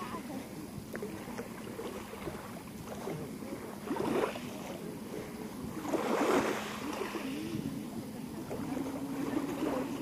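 Sea waves washing onto the shore, with two louder swells of surf about four and six seconds in. A faint steady low hum joins near the end.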